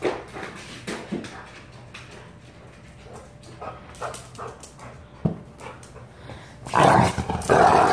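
A pit bull-type dog playing fetch: a few light taps and small sounds, then, about a second before the end, loud rough play-growling with the toy in its mouth.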